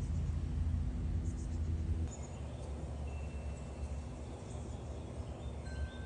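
Outdoor background noise: a steady low rumble that changes abruptly about two seconds in, with faint thin high tones near the end.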